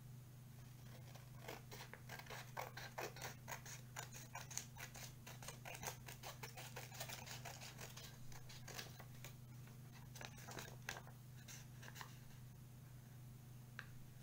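Scissors cutting paper: a quick run of snips starting about a second and a half in and thinning out near the end, over a steady low hum.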